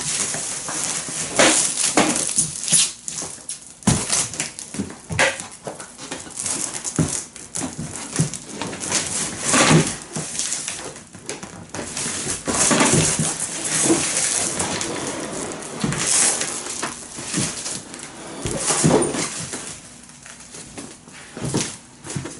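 Irregular crinkling of plastic wrap and rustling, scraping and knocking of a large cardboard wardrobe box as it is tilted, turned and wrapped by hand.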